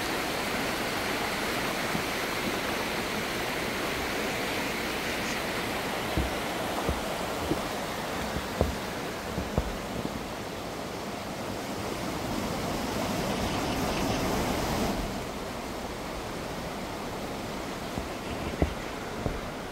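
Steady outdoor rushing noise with scattered low thumps on the microphone; the hiss loses its brightness about fifteen seconds in.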